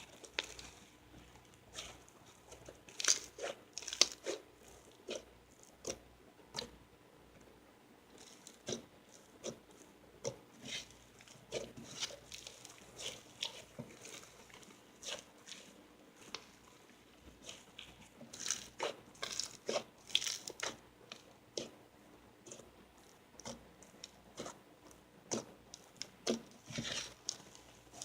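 Snowflake slime being squeezed and worked by hand, giving many irregular crunchy crackles and small pops.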